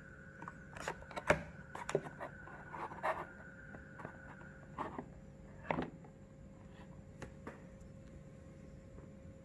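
A cardboard flashlight box being handled on a table: soft rubbing, scraping and a few light knocks through the first six seconds, then only faint room tone.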